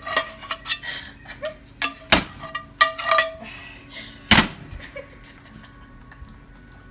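Kitchen clatter of a pan, a plate and utensils clinking and knocking, with two sharper knocks about two and four seconds in. It quietens after about five seconds.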